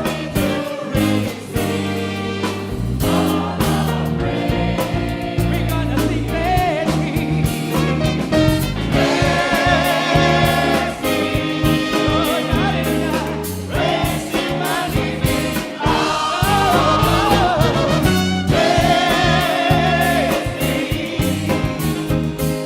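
Large mixed choir singing a gospel hymn, with sustained voices over instrumental accompaniment and a steady bass line.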